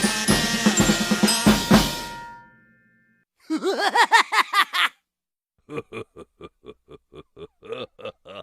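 Cartoon sound effects in sequence. A drum-kit beat fades out in the first two seconds. After a short silence comes a wobbling pitched effect whose pitch bounces up and down, then a quick run of short repeated pulses, about four a second.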